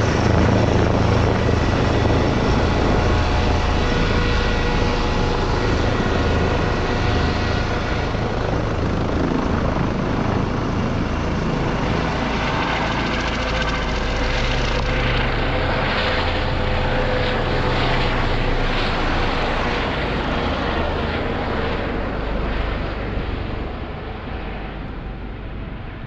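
Airbus (Eurocopter) EC135 twin-turbine helicopter flying overhead and away: steady rotor chop over a high turbine whine, fading gradually in the last few seconds as it moves off.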